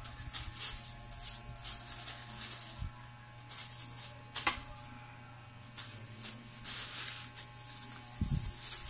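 Clear plastic bag crinkling and rustling in the hands while tape is wound around its gathered neck, in irregular short crackles, with one sharp click about halfway through. A steady low hum runs underneath.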